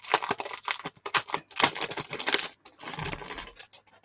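Plastic wrapper crinkling and crackling in quick irregular bursts of rustle as it is pulled off a Stampin' Cut & Emboss embossing folder.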